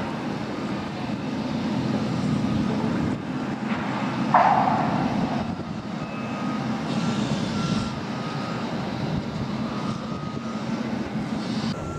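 Customs patrol boat running at speed: a steady engine drone with wind and rushing water, and a sudden splash or hull slap about four seconds in.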